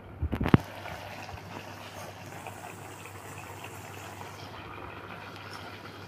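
Maggi noodles simmering steadily in their broth in an aluminium pan on a gas stove, after a few sharp clinks of a metal fork against the pan at the very start.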